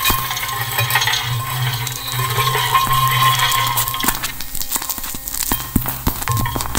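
Experimental electroacoustic music: a dense scatter of small clicks, clinks and crackles over a steady low hum and a thin steady tone. The hum and tone drop away about four seconds in, just after a sharp click; another sharp click comes at the start.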